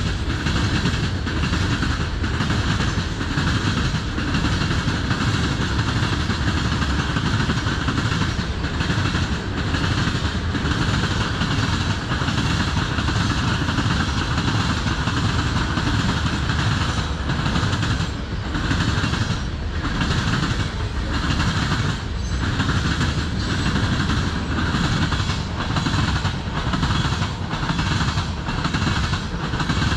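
Freight train of boxcars and tank cars rolling past: a steady rumble of steel wheels on rail, with clickety-clack repeating as each car's wheels cross the track.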